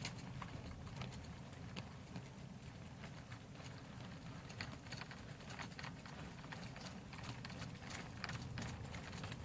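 Model railway goods wagons rolling slowly through the yard, their wheels clicking irregularly over the rail joints and pointwork, with a steady low rumble underneath.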